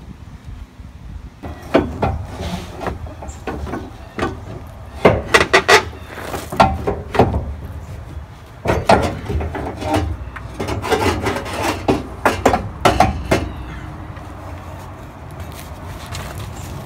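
Metal exhaust pipe and muffler of a Subaru L-Series being wrestled loose from under the car: irregular knocks, clanks and scraping of the pipe against the underbody, dying down near the end.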